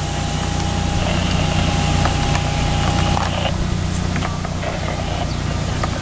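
A steady low engine hum with an even hiss over it; a thin high steady tone runs through the first three seconds or so and then stops.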